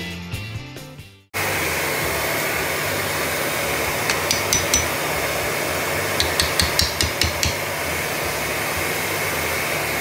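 Background music fades out about a second in. Then comes a steady blower whir from an electric heat gun running, with two quick runs of light, sharp hammer taps driving wooden shims behind a granite backsplash, around four and six seconds in.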